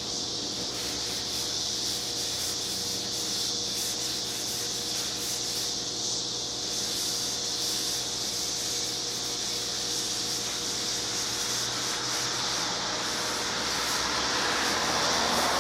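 A cloth rubbing over motorcycle exhaust pipes, wiping off handprints and oil, over a steady background hum.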